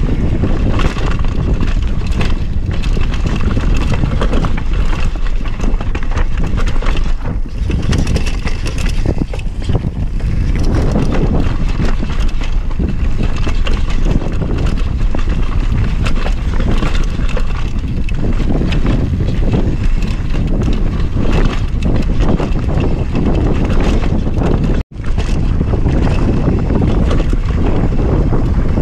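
Wind rushing over the camera microphone together with the clatter of a mountain bike riding fast over a rough dirt and rock trail. The noise cuts out for a split second near the end.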